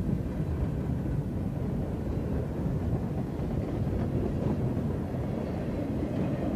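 Freight train boxcars rolling past at close range, a steady low rumble of wheels on the rails.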